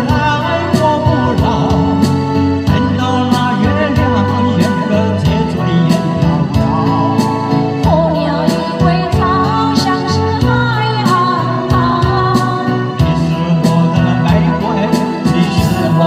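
A man and a woman singing a duet into microphones over instrumental accompaniment with a steady drum beat.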